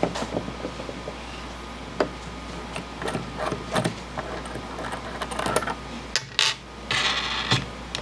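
Clicks, knocks and clatter of small hard parts being handled, with a short rasping noise near the end.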